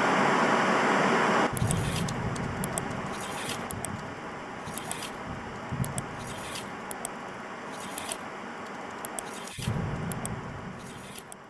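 End-screen animation sound effects: a loud rushing noise for about a second and a half, then a steady noisy bed with sharp clicks about once a second, fading out near the end.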